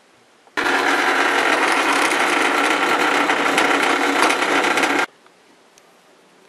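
Drill press running, its bit cutting into a metal block. The sound starts suddenly about half a second in, holds steady, and cuts off about five seconds in.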